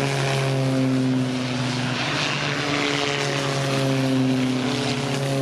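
Propeller-driven aircraft flying overhead: a steady engine drone whose pitch slides gradually lower as it passes.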